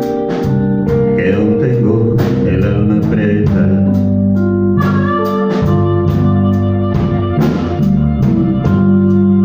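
Live blues band playing an instrumental passage: guitars, with an organ and a steady drum beat.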